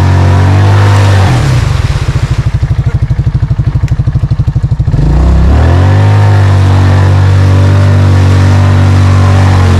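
ATV engine held at high revs with the quad stuck nose-down in a mud hole. About a second in, it drops to a slow, pulsing idle for a few seconds, then revs back up and holds high.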